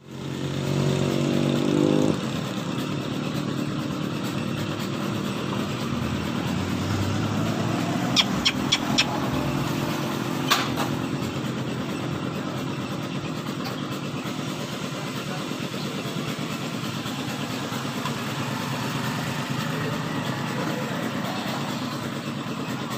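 An engine running steadily, louder for the first two seconds. Four sharp clicks come about eight seconds in, and another a couple of seconds later.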